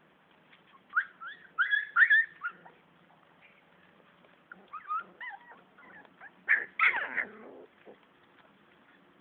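Siberian husky puppies fighting, giving short high-pitched yelps and whimpers. The cries come in two loud clusters, about a second in and again about six and a half seconds in, with scattered quieter squeals between.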